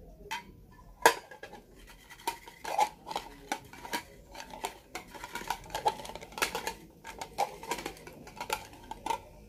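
Folded paper slips shaken in a clear bowl capped with a pierced metal dish, to mix the lots for a prize draw. Irregular rattling and scraping, with sharp clinks of the bowl against the dish.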